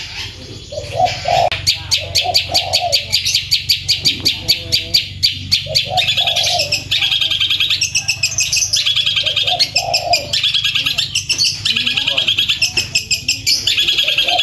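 Long-tailed shrike (cendet) singing loudly and continuously: fast rolling runs of rapid sharp notes, about ten a second, broken by trilled phrases and lower warbled notes.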